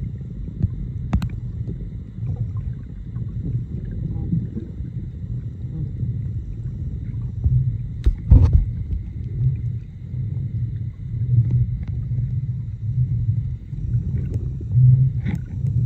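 Muffled, pulsing low rumble of water moving around a submerged camera, with a few sharp clicks and one louder knock about eight seconds in.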